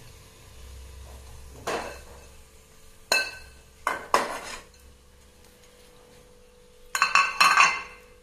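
Metal spoon knocking and scraping against a frying pan of crisp-fried bitter gourd pieces: a few separate clinks, then a quick clatter near the end.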